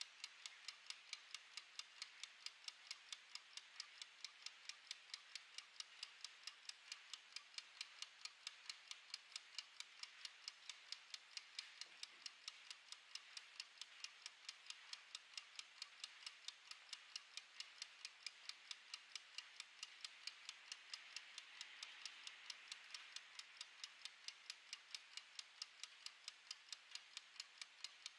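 Mechanical wind-up kitchen timer's clockwork ticking: a faint, fast, perfectly even tick as it counts down.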